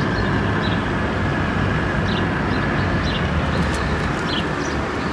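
Gas grill burners burning with a steady rushing noise, with faint short high chirps scattered through it.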